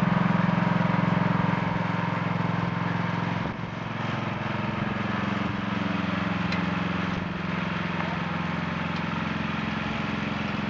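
Riding lawn mower engine running steadily as the mower drives across the lawn. It gets a little quieter about two seconds in.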